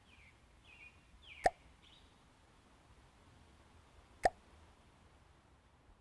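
Two short plopping interface sound effects from a map app, about three seconds apart.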